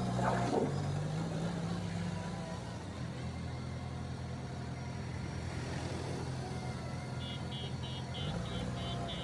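JCB backhoe loader's diesel engine running under load, its pitch shifting as it revs near the start and again near the end. A rapid series of short high beeps sounds over it in the last two seconds.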